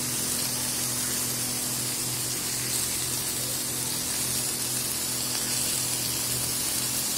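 Hot oil sizzling steadily in a pan around pieces of steamed dried fish, heads included, as they shallow-fry.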